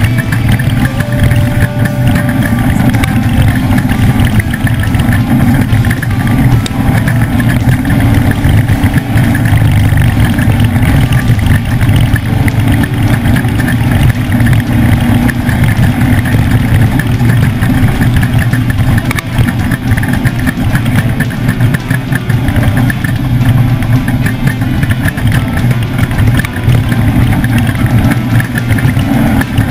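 Off-road race truck's engine running hard at a fairly even speed through a lap: a loud, continuous drone without big rises or falls in pitch.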